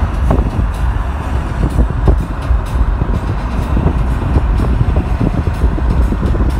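Road and wind noise of a moving car: a steady low rumble with irregular crackling knocks throughout.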